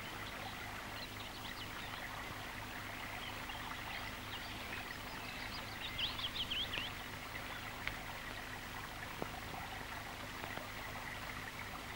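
River water flowing, a steady gentle rush, with a bird chirping quickly for about a second around six seconds in.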